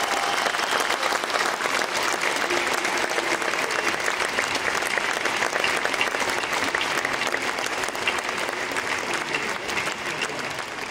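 Audience applauding: dense, steady clapping that slowly fades toward the end.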